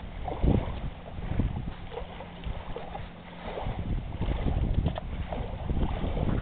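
Wind buffeting the camcorder microphone in uneven gusts, a low rumbling noise.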